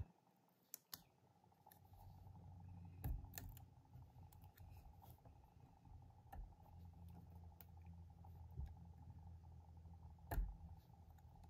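Faint scattered clicks and ticks of a weeding hook picking and lifting cut vinyl off its backing sheet on a cutting mat, the sharpest about ten seconds in.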